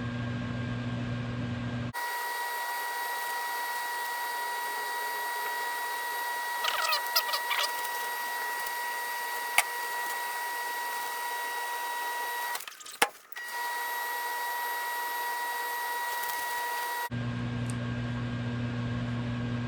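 Microwave oven running with a steady low mains hum. For most of the stretch the audio is fast-forwarded, turning the hum into a steady high-pitched whine with a few brief chirps and clicks. Near the end it drops back to the low hum.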